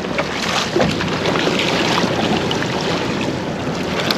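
Sea water splashing and washing along the side of a boat, with wind on the microphone.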